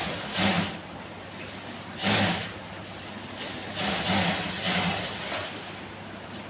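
Electric sewing machine running in short bursts of stitching, each under a second long, with brief pauses between them.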